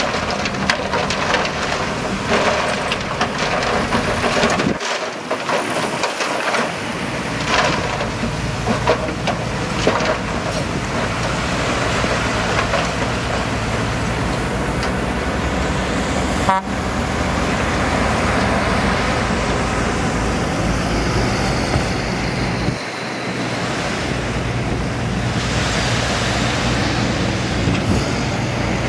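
Heavy diesel earthmoving machinery running steadily under load, with clanks and knocks of rock and steel in the first ten seconds. The low engine note breaks off briefly twice.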